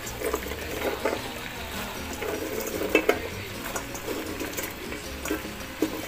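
Raw long beans (sitaw) being dropped by the handful into a wok of braised pork and tofu: soft clatters and knocks, with a sharper knock about three seconds in and another near the end.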